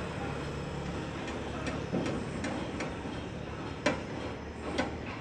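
Steady low hum with irregular sharp clicks and knocks, roughly one every half second, the loudest about four seconds in and at the end.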